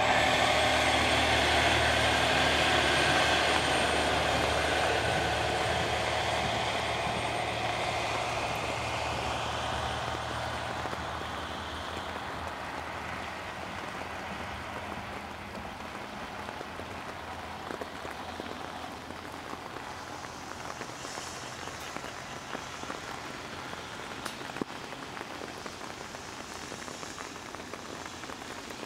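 HOT3500 series diesel railcar running past, its engine hum and wheel noise fading over the first ten seconds or so as it pulls away. Steady rain is left, with scattered drips.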